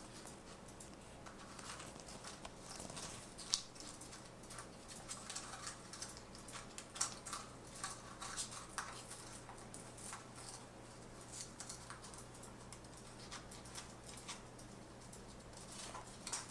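Green-cheeked conure moving about, making irregular small clicks, taps and scratches, with a couple of sharper ticks.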